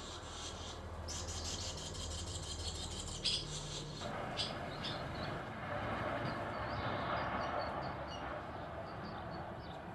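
Barn swallows chirping at the nest: a fast run of high twittering over the first few seconds, then scattered short high chirps. A sharp click sounds about three seconds in.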